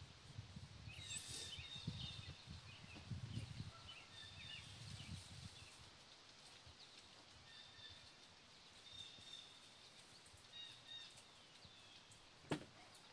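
Faint birdsong outdoors: short high chirps and whistled notes repeating, over low rumbling in the first few seconds and a single sharp click near the end.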